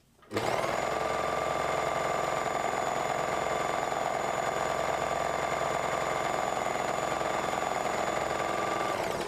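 Lewenstein Multilock 700de overlocker (serger) stitching the edge of a cloth. Its motor spins up about a third of a second in, runs at a steady speed, and winds down just before the end.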